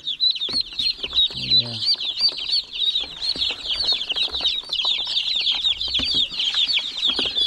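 A brood of baby chicks and ducklings peeping constantly, many high-pitched, rising-and-falling peeps overlapping in a dense stream.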